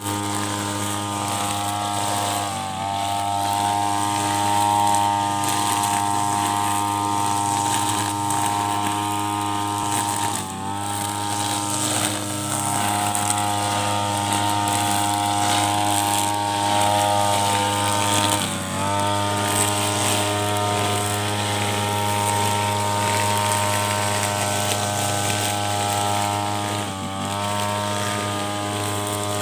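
Backpack brush cutter engine running steadily at high speed while cutting grass. Its pitch dips briefly four times and climbs back each time.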